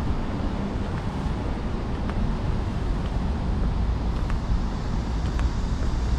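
City street ambience: a steady low rumble of road traffic with wind noise on the microphone, and a few faint ticks.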